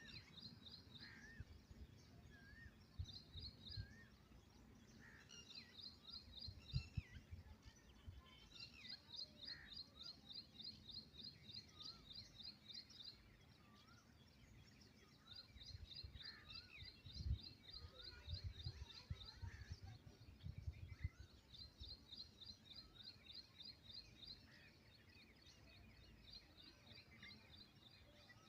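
Faint small-bird song: bouts of rapid, high-pitched trills repeating every few seconds, with scattered short whistled notes between them. Low rumbles and thumps underneath, loudest at about 7 and 17 seconds in.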